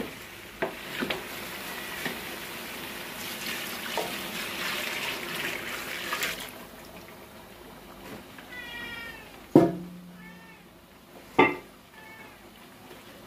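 Chicken sizzling in a large pot as hot stock is added, a steady hiss with a few spoon clicks for about the first six seconds. Then it goes quieter and a cat meows a few times, between two sharp knocks that are the loudest sounds.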